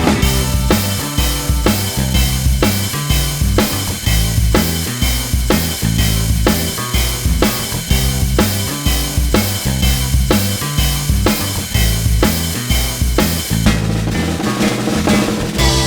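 Background music with a steady drum beat and bass line, about two beats a second.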